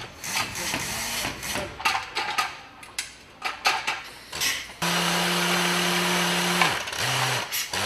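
Clanks and rattles of metal parts being handled, then an electric motor runs steadily for about two seconds and winds down, followed by two short lower-pitched bursts.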